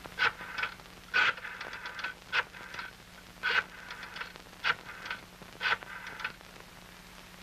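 A rotary-dial telephone is being dialed. After each digit the dial spins back with a click and a short whirring ratchet, several times at about one-second intervals.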